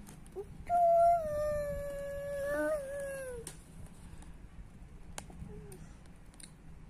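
A dog howling: one long, high whine of about three seconds that holds its pitch, wavers briefly, then slides down at the end.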